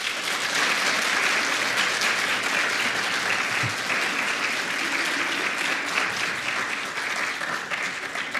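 Audience applauding steadily, a dense patter of many hands clapping that begins to ease off near the end.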